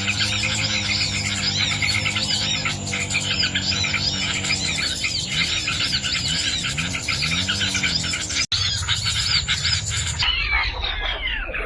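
Small songbirds chirping rapidly and continuously, many short arched notes overlapping, with a thin steady high tone running under them. About ten seconds in, the chirping breaks off into a long falling electronic sweep.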